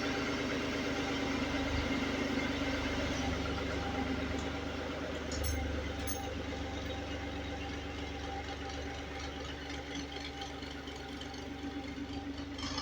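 A motor running steadily with a low, pulsing hum and a noisy rush over it.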